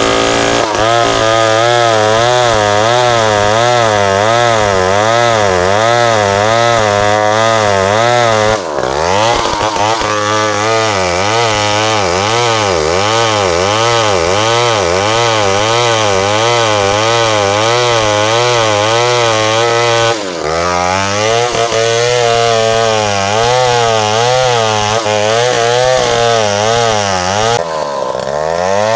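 Two-stroke chainsaw cutting into a large tree trunk at high revs, its engine pitch rising and falling about once a second as the saw works through the cut. Three times the engine briefly drops in pitch and picks back up.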